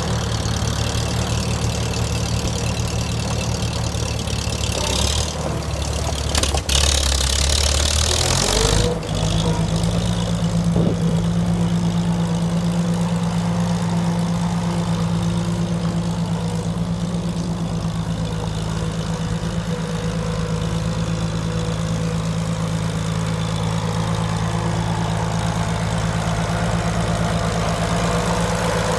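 1951 McCormick-Deering W-4 tractor's four-cylinder engine running at a low idle, then speeding up about nine seconds in and running steadily at the higher speed as the tractor drives.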